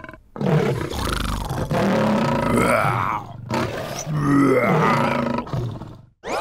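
Lion roaring: two long, rough roars, the second beginning about three and a half seconds in.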